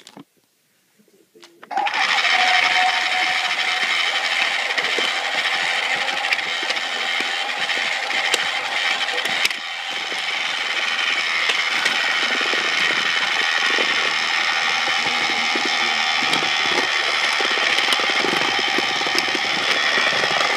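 Small electric motor of a battery-powered toy train whirring steadily at close range. It starts about two seconds in and cuts off abruptly near the end.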